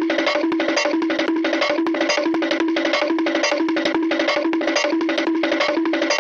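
Cartoon library sound effect: a rapid, even patter of plucked or tapped notes, about ten a second, alternating between a low note and one about an octave higher every half second or so.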